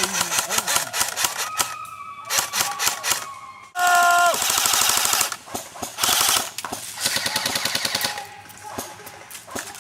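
Airsoft guns firing in rapid bursts, a fast run of sharp cracks that comes and goes, with a brief loud pitched tone about four seconds in.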